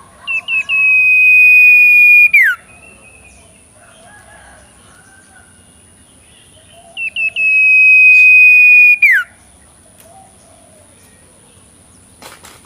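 A young pet bird calling twice: each call is a few short chips running into a long, steady high whistle that drops sharply at the end. A brief click comes near the end.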